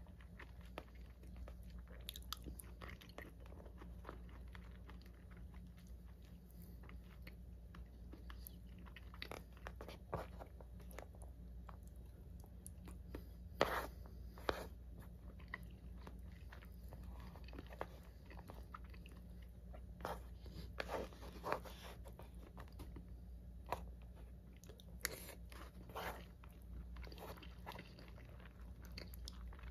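Close-up mouth sounds of a person eating soy-marinated raw fish and rice: soft wet chewing with small smacks and clicks at irregular intervals, a few louder ones around the middle. A steady low hum lies underneath.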